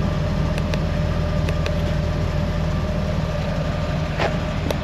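Steady low mechanical hum with a constant higher tone running through it, and a couple of faint clicks near the end.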